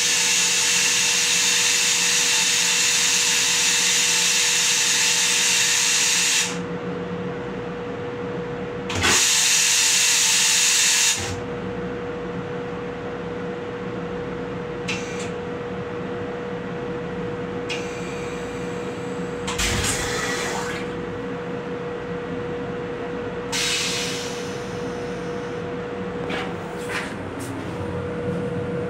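M7 rail car toilet flushing: a loud, steady hissing rush that cuts off abruptly about six seconds in, then a second, shorter rush of about two seconds. A steady hum continues underneath, with a few small knocks later on.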